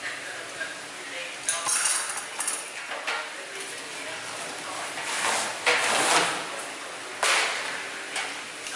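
Handling noise while unpacking a ceiling-fan blade: metal hand tools clink as they are set down, then the blade's foam wrapping scrapes and rustles as it is pulled off. A few short clinks come in the first couple of seconds, a longer scraping rustle about five seconds in, and another short one about seven seconds in.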